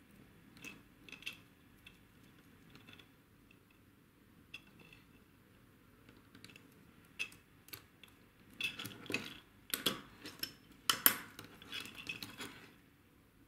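Small plastic and metal parts of a 1/28-scale RC car chassis clicking and clinking as they are handled and fitted by hand, scattered at first and busier over the last few seconds.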